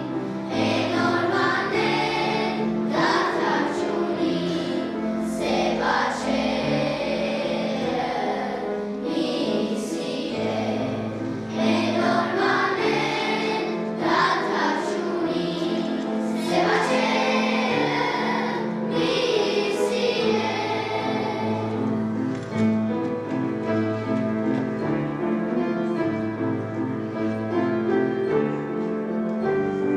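A children's choir singing in unison over instrumental accompaniment. About two-thirds of the way in the voices drop out and the accompaniment plays on alone.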